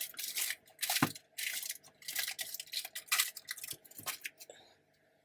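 Plastic packaging crinkling and rustling, with small clicks and knocks, as wrapped cheese packs are handled and set into a plastic tray. The noises stop about a second before the end.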